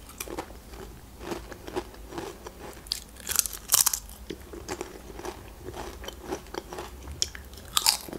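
Close-miked biting and chewing of Pringles paprika potato crisps: sharp crisp crunches with quieter chewing between, the loudest crunches a little past three seconds in and again near the end.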